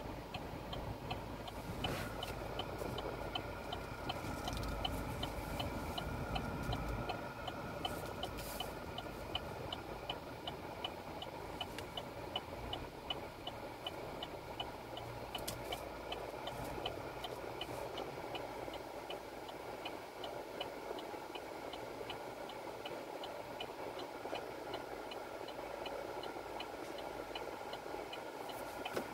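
A car's turn-signal indicator ticking at an even pace inside the cabin, over the low hum of the idling engine.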